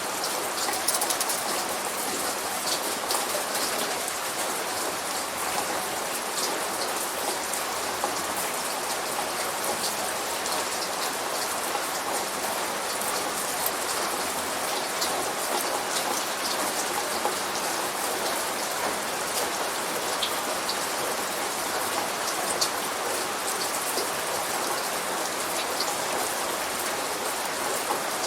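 Steady light rain falling, an even hiss with many small drop ticks.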